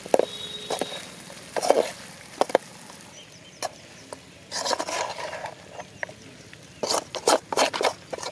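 A metal slotted spoon scraping and knocking against a steel kadai while stirring chicken fry, in short irregular clusters of scrapes.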